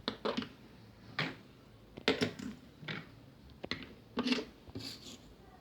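Fidget spinners being set down and slid into place on a hard surface: a string of about eight light knocks and short scrapes at uneven intervals.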